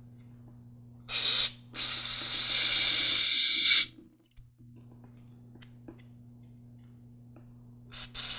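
Aerosol carburetor cleaner sprayed through a thin straw into the passages of a lawn mower carburetor body. There is a short hiss about a second in, then a longer hiss of about two seconds, and a brief spurt near the end.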